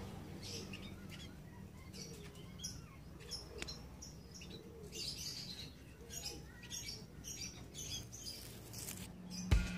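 Small birds chirping, with many short high calls scattered throughout over a low steady hum. Music with heavy beats comes in just before the end.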